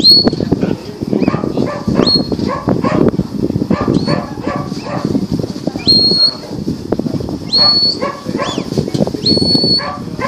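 Shepherd's whistle commands to a working sheepdog: short whistles that rise and then hold a high note, repeated about every two seconds. Under them a dog whines and yips, and wind rumbles on the microphone.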